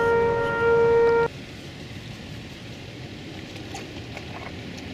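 Outdoor tornado warning siren holding a steady tone, which cuts off abruptly just over a second in. After that comes a steady hiss of rain with a few faint taps.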